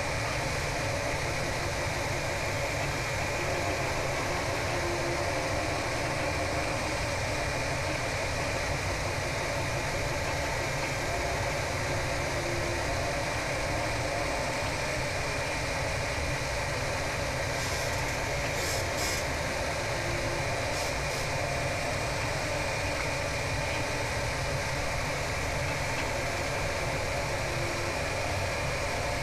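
EmBlaser laser engraver running through a raster engraving pass with its 3W diode laser: a steady mechanical whir and hum at an even level, with a constant high tone. A few faint ticks come about two-thirds of the way through.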